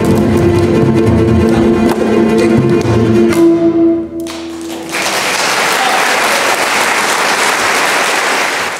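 Double bass quartet playing the closing bars of a piece, ending on a held note about four seconds in. After a short pause the audience applauds.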